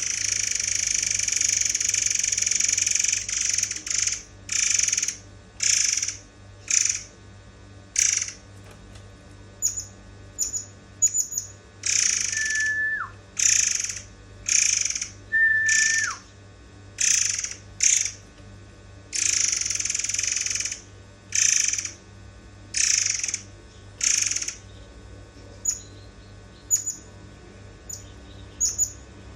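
Murai air bird calling, as on a songbird training recording: a run of harsh, rasping calls about half a second each, repeated roughly once a second, with short high chips in the gaps. Twice, around twelve and fifteen seconds in, a clear whistled note breaks off in a sharp downward drop.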